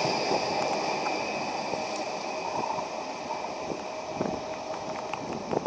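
Stadler Flirt 3 electric multiple unit (ED160) pulling away, its running noise fading as it recedes, with a steady high whine over the rumble.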